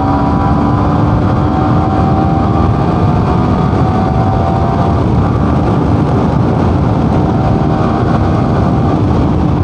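Motorcycle engine running at a steady cruise, its pitch holding nearly level with a slight shift about halfway, over heavy wind rumble on the rider's microphone.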